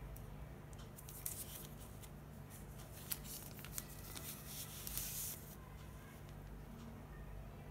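Hands handling phone packaging: scattered soft crackles and light clicks, thickening into a short rustle about five seconds in, over a faint steady low hum.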